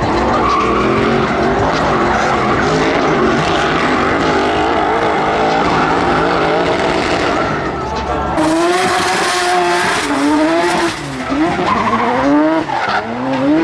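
Drift cars' engines revving hard, the pitch rising and falling as the throttle is worked through the slides, with tyres squealing on the tarmac. About eight seconds in, the sound changes abruptly to another car revving.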